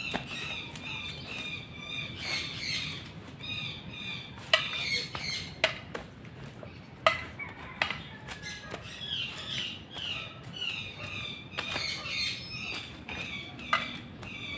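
About seven sharp, irregularly spaced cracks of an eskrima stick striking a swinging pendulum target pole, loudest around the fifth and seventh second. A bird calls throughout in short, repeated chirping phrases.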